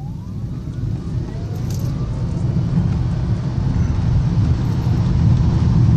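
Fiat 500e electric car accelerating hard from a standstill: its electric motor whine rises in pitch at the start, then a low rumble of road and wind noise grows steadily louder as speed builds.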